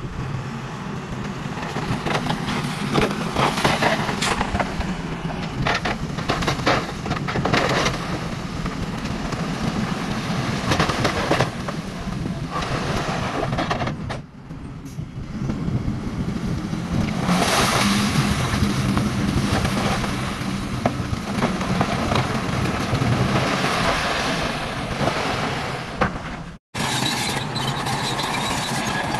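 Small motors of toy trucks and a toy bulldozer running steadily, with frequent clicks and clatters over the hum. The sound cuts off abruptly near the end and resumes.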